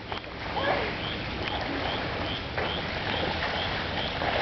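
Steady rain falling on a flooded lawn and standing water, an even hiss. Over it a short, high chirp repeats about two or three times a second.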